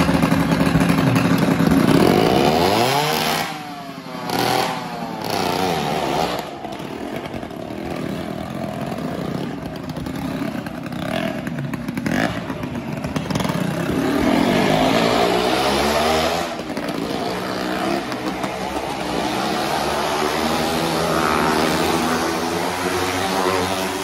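Motorcycle engines revving up and easing off in repeated rising and falling swells as riders circle the vertical wooden wall of a well-of-death drum. The engine note is steady for the first two seconds or so, and the revving starts about three seconds in.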